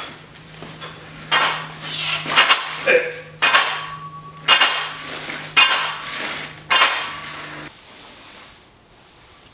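Barbell's iron weight plates clanking during bench press reps: sharp metallic clanks with a short ring, about one a second. A steady low hum runs underneath and cuts off near the end.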